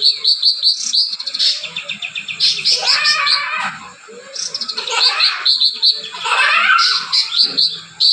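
Caged cucak ranting songbird singing, with mimicked kapas tembak phrases: fast runs of sharp, high chirps at about four or five a second, broken twice by longer, more varied warbling phrases.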